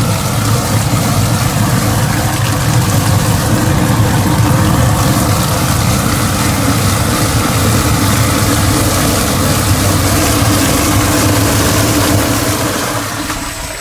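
Gertec colloidal grout mixer running, churning water in its tank with a loud, steady drone. It eases off slightly near the end.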